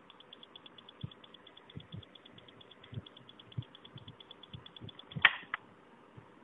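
Faint, rapid high-pitched electronic ticking, about eight pulses a second, from an opened RC transmitter under test with a DIY 2.4 GHz module wired in; it cuts off at a loud sharp click a little past five seconds in. Scattered dull low thumps from handling run through it.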